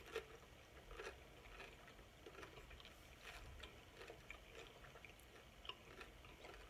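Near silence with faint closed-mouth chewing of a tortilla chip with taco soup: a few soft, scattered mouth clicks.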